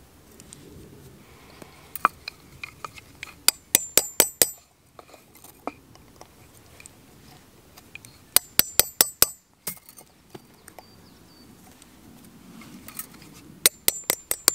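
Small hammer striking a chisel held on a copper strip laid on a small iron anvil, cold-working the metal. Sharp, ringing metallic strikes come in quick runs of six or seven, three times, with a few lighter taps before the first run.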